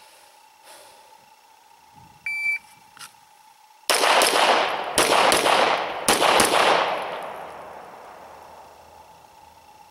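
A shot-timer beep, then six shots from a 9mm Glock 34 pistol fired in three quick pairs, the two shots of each pair about a third of a second apart and the pairs about a second apart. The reports echo away over a couple of seconds after the last shot.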